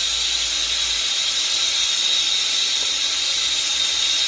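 Air-acetylene B-tank torch flame burning with a steady hiss and a constant high whistle while it heats the work.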